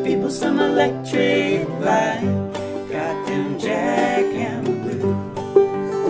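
Two acoustic guitars and a banjo playing an upbeat folk tune together, with voices singing over the first part.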